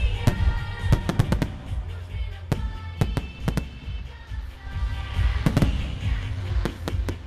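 Fireworks salute going off in quick clusters of sharp bangs, with music playing along.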